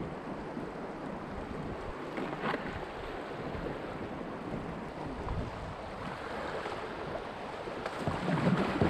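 Whitewater rapids rushing and splashing around a kayak as it is paddled through, with some wind on the microphone. The water grows louder near the end as the kayak runs into rougher water.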